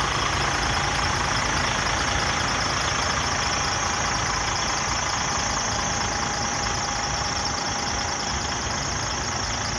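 DAF CF 85.360 mixer truck's diesel engine, a PACCAR MX straight-six, idling steadily, with a faint high whine running through the engine noise.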